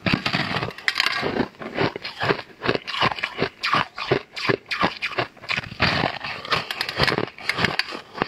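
Crunching as a large purple frosted slab is bitten into and chewed: a rapid, uneven run of crisp crunches, several a second, with short pauses between bites.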